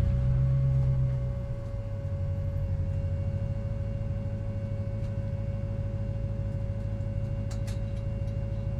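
C5 Corvette race car's 5.7-litre V8 idling, a little louder for the first second and a half and then steady, with a thin steady whine above the engine note.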